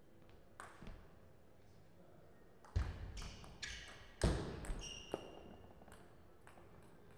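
Table tennis rally: the ball clicks off paddles and table, with two loud thumps of footwork near the middle and brief sneaker squeaks on the court floor.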